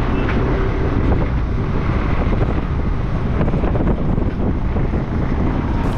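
Wind buffeting the microphone from a moving tuk-tuk (auto-rickshaw), with the small engine running steadily underneath.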